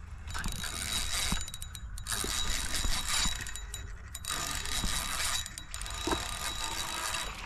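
Spinning reel being cranked in spells of about a second each with short pauses between them, its gears and rotor whirring as line is wound in.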